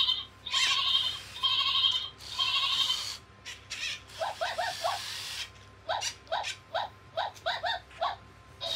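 Toy robot dog's electronic voice: four drawn-out synthesized cries about a second apart, then a quick run of short chirps from about four seconds in.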